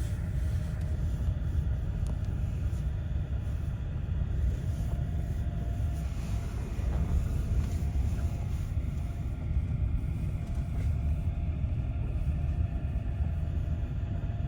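Steady low rumble of a vehicle in motion: road and tyre noise.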